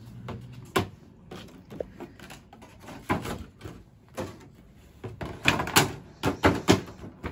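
Cardboard window box and clear plastic insert of a Pop! vinyl figure set being handled as the figures are packed back in: irregular rustling, tapping and knocks of packaging, busiest over the last couple of seconds.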